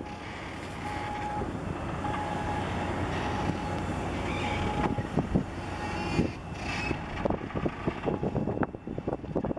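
Engine rumble that builds over several seconds and then drops off suddenly, followed by irregular gusts of wind buffeting the microphone.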